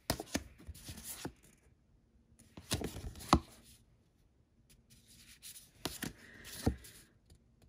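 Stiff deck cards being handled: cards slid off the deck and tapped, in three short flurries of clicks and rustles, the sharpest click a little past the middle.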